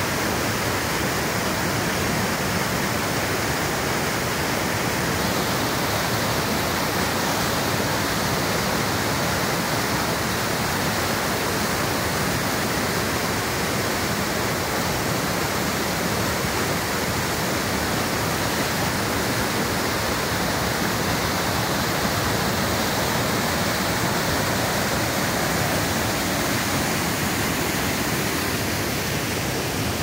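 Mountain waterfall pouring and splashing down a steep rock face: a steady, unbroken rush of falling water.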